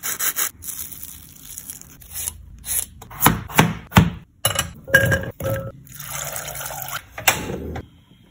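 A string of kitchen sounds. First, crisp fried potato sticks snap and crunch in a quick crackly burst. About three seconds in, a knife cuts potato chunks on a plastic cutting board with several sharp knocks. A stretch of splashy water sound follows.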